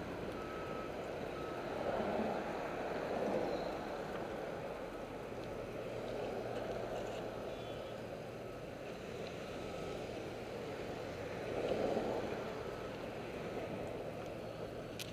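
A vehicle's backup alarm beeps faintly, about once a second, at a steady pitch. Under it runs a steady rush of wind on the microphone and city traffic, swelling now and then.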